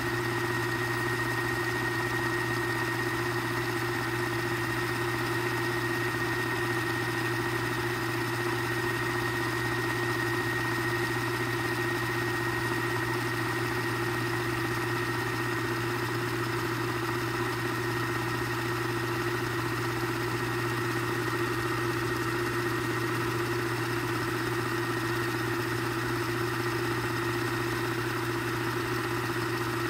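Telex Copyette 1 & 3 cassette duplicator running a high-speed copy: a steady mechanical hum and whir from its motors and tape drive, with a thin high whine over it.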